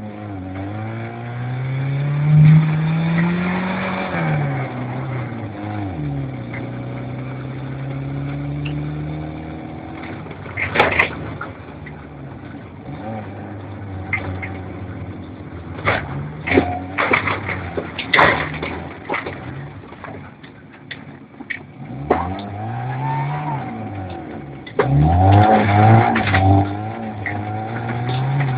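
Vehicle engine revving up and falling back several times as it drives, with scattered knocks and rattles.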